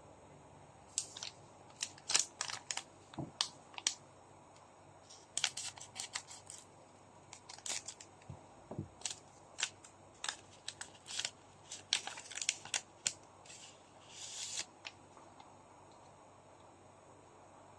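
Trading card packs being opened and handled: a run of sharp crinkles and clicks from the foil wrappers and cards, with a longer rustle near the end.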